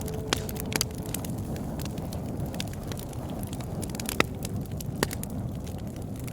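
Bonfire burning with a steady low rush, broken by sharp, irregular crackles and pops from the burning wood, the loudest about four seconds in.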